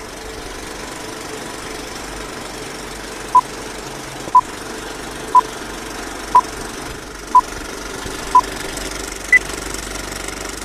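Old-film countdown leader sound effect: a film projector's steady whirring rattle, with a short beep every second, six at one pitch, then a final higher beep near the end.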